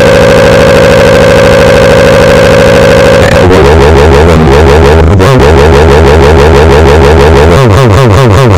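A man's tantrum screaming, heavily distorted and clipped: one held shriek for about three seconds, then wavering yells that rise and fall in pitch.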